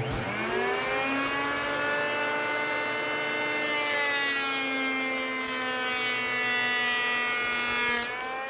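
Electric hand planer: the motor spins up to a steady high whine, and from about three and a half seconds in the blades cut along a wooden board with a hissing shave. The pitch sags slightly under the load and rises again when the cut ends, near the end.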